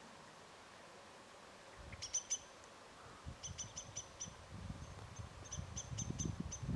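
Small bird giving short, high chirps in quick runs, starting about two seconds in, over a low rumble that builds toward the end.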